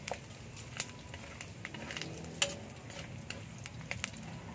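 Pork belly cubes frying in hot oil in a wok, sizzling steadily while a spatula stirs and scrapes them, with scattered sharp clicks and pops. The fat is rendering out as the pork crisps.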